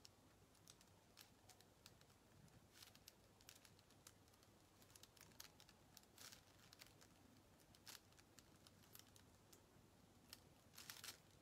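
Near silence, broken by faint scratches and rustles from a pen tracing lettering through transfer paper, with a short cluster of louder rustles near the end.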